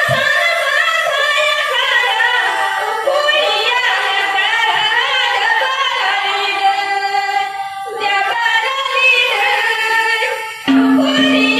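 A song sung in high voices over music. About a second before the end the music gets louder and a steady low drone comes in.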